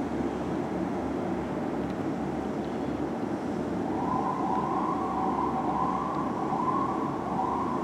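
Fire engine siren wavering up and down. It comes in about halfway through over steady city traffic noise.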